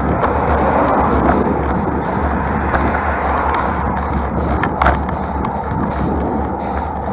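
Road bike riding with wind and road noise on the bike-mounted camera: a steady low rumble and rushing hiss. Scattered small clicks and rattles run through it, with one sharper click just before five seconds in.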